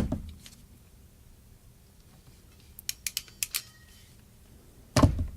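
Ratcheting hexagonal ferrule crimper (IWISS HSC8 6-6) clicking through its ratchet: a quick run of about half a dozen sharp clicks near the middle. A dull knock comes at the start and a louder one near the end.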